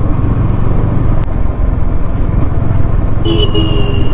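Yamaha R15 motorcycle's single-cylinder engine running steadily under way, with road and wind noise. A brief high-pitched tone sounds near the end.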